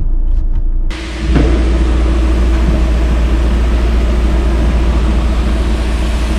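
Steady low engine rumble. About a second in it gives way to a louder, steady mechanical running: a deep hum under an even hiss, with no change in pace.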